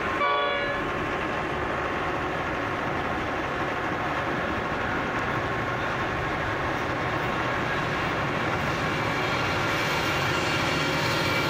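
Steady rumble of diesel-electric locomotives: T-class locomotives idling at the head of a standing transfer train, with an approaching freight train led by NR-class locomotives growing slightly louder toward the end. A short pitched tone sounds in the first second.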